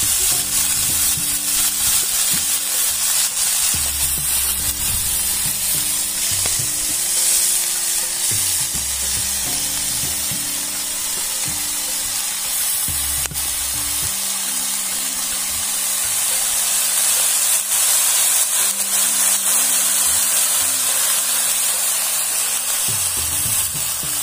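Fiddlehead fern greens sizzling steadily as they stir-fry in a hot metal wok, stirred with a stalk.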